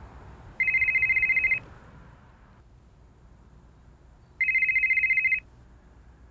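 Smartphone ringing with an incoming call: two trilling telephone rings, each about a second long, nearly four seconds apart, over a faint low hum.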